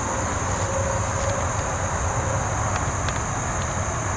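Steady high-pitched insect drone over a low, even rumble.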